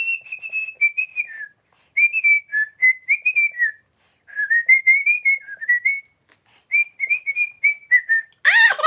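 A woman whistling a Christmas tune through her lips, in four short phrases with brief pauses for breath between them.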